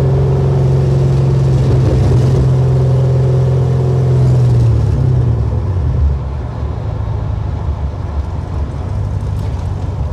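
A 1968 Camaro SS's LSX V8, heard from inside the cabin while driving, pulling with a deep, slowly rising engine note. About five seconds in it eases off and settles to a quieter cruise mixed with road noise.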